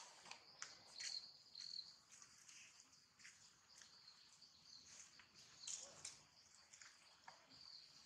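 Faint insect chorus: a steady high hiss with short repeated chirps, and a few faint clicks.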